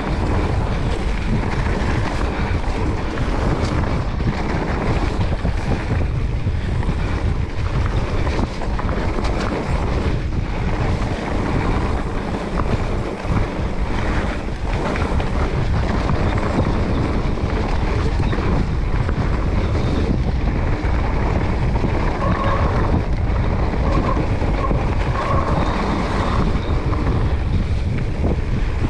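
Wind rushing over the action camera's microphone and the tyres of a Specialized Turbo Levo electric mountain bike rolling down a dirt forest trail. Constant knocks and rattles come from the bike over bumps.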